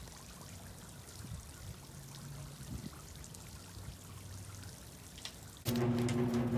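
Pool water splashing and trickling as a dog plunges in and moves through it, soft and even with a few small splashes. Near the end a much louder steady hum with several pitches starts abruptly.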